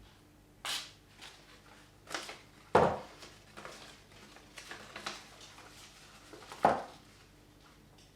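A handful of short scrapes and swishes and two dull knocks from an axe being handled and worked by hand; the two knocks, about three and seven seconds in, are the loudest.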